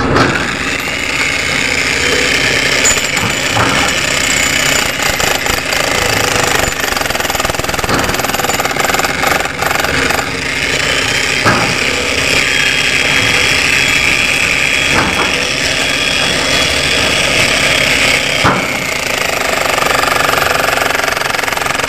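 Handheld jackhammer hammering rapidly and continuously into the very hard concrete of a bridge pier top, chipping it away between the rebar, with a brief break about ten seconds in.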